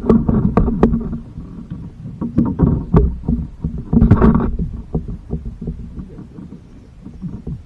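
Knocks, bumps and clicks against a plastic kayak's hull as gear and the angler shift about in it. The thumps come in clusters in the first second and around three and four seconds in, then thin out to a few scattered clicks.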